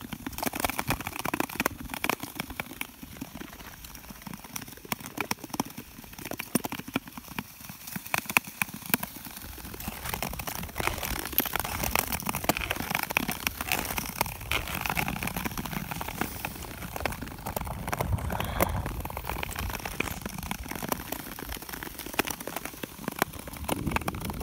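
Nordic touring skate blades scraping and gliding over thin, clear natural lake ice, with a dense crackle of small clicks and ticks from the ice, growing louder about halfway through.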